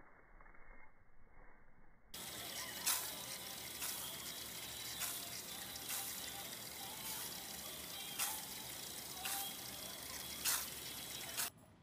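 Water running and splashing from a garden fountain into a half-barrel: a steady splashing hiss that starts suddenly about two seconds in, with a short louder burst about once a second.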